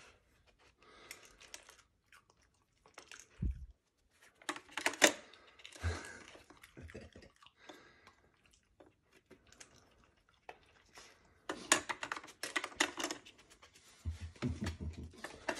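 A plastic Dog Activity treat-puzzle board clicks and clatters as a Jack Russell terrier's nose and muzzle push at its lids and sliders, in scattered short bursts that come thickest about two-thirds of the way through.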